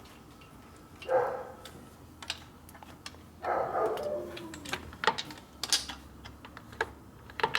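Scattered light clicks and taps of small parts and tools being handled while working on a motorcycle, with two short indistinct voice-like sounds.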